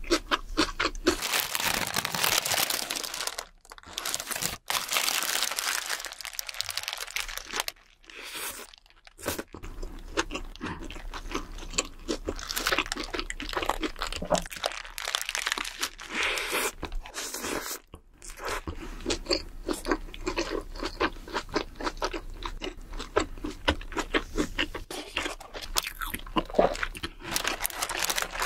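Close-up eating sounds: crunchy bites and wet chewing of Burger King fast food, including bites into a wrapped burger, in dense runs with a few short pauses.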